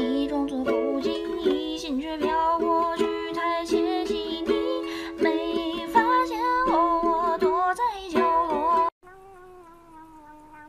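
Upbeat background music with plucked strings and a bending melody line, cutting off suddenly about nine seconds in. After it, a faint, drawn-out cat sound with a slowly falling pitch, from a calico cat licking a squeeze-tube treat.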